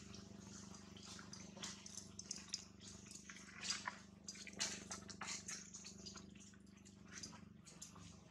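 Faint, irregular clicks and crackles from long-tailed macaques handling and nibbling dry food scraps, over a steady low hum.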